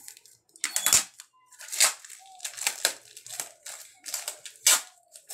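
Package being opened by hand: its wrapping crinkled and torn in several short, sharp rustling bursts.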